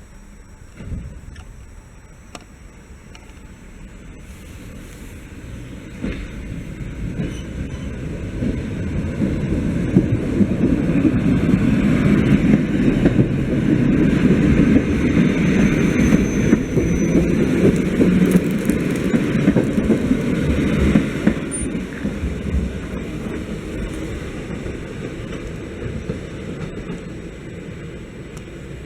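Regional passenger train passing on the line, growing steadily louder, loudest for about ten seconds in the middle, then fading away.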